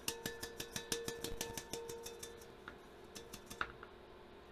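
Grit and small gravel rattling and ticking against a metal wok used as a gold pan as it is shaken in water to settle the heavy black sand. A quick run of sharp clicks comes in the first couple of seconds, then thins to a few scattered ticks.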